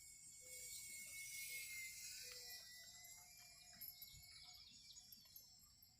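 Faint high-pitched whine of a small electric RC plane's motor and propeller in flight, growing louder about a second or two in, then fading as it flies off.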